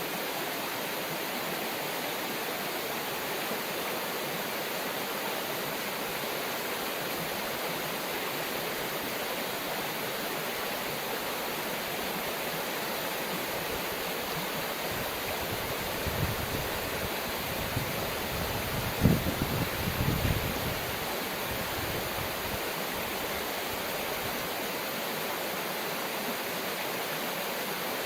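River water rushing over rocks in a steady, even hiss. Around two-thirds of the way through comes a short cluster of low rumbles, the loudest of them about nineteen seconds in.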